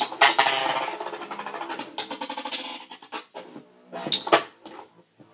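Beyblade spinning tops whirring and rattling against each other and the walls of a plastic stadium: a dense clatter over the first few seconds that thins to a few sharp clacks near the end.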